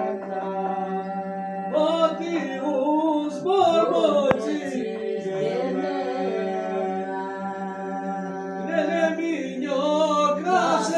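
Unaccompanied Aromanian folk song sung by several voices: a steady held drone under a wavering, ornamented melody line.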